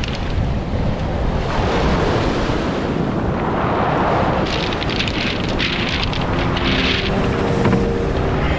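Wind buffeting the microphone over ocean surf breaking on a pebble beach, with a stretch of rattling beach pebbles about halfway through.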